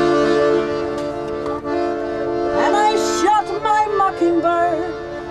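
Background music from a song's instrumental passage: steady held chords, with a wavering melody line that bends up and down through the middle.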